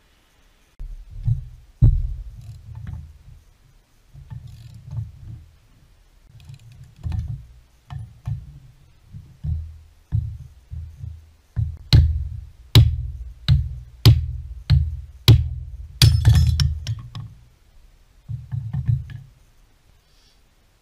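Music with a heavy bass line and a drum beat, the beat hitting about every half second in its middle part.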